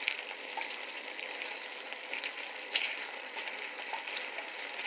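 Chicken adobo sauce bubbling and sizzling in a skillet, a steady hiss broken by scattered sharp pops and clicks; a wooden spoon stirs the pan at the start.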